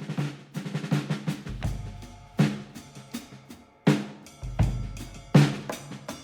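Background music with a drum kit beat: kick drum hits and snare and rimshot strokes.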